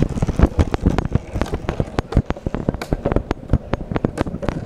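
Skateboard wheels rolling over pavement joints: a quick, uneven run of sharp clacks, several a second.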